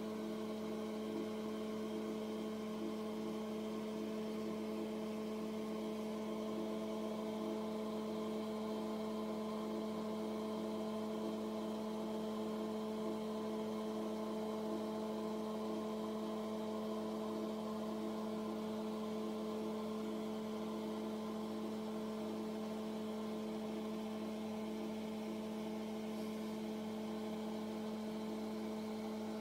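Steady electrical or mechanical hum, several held tones with a low one strongest, unchanging throughout.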